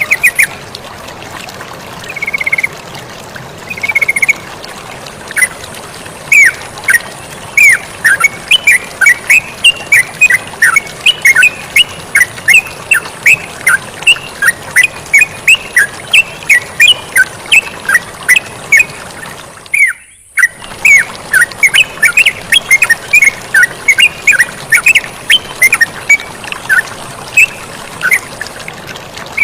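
Yellow-vented bulbul (terucukan) calls: a fast, dense run of short chattering notes over the steady sound of running water. Everything cuts out briefly about two-thirds of the way through, then resumes.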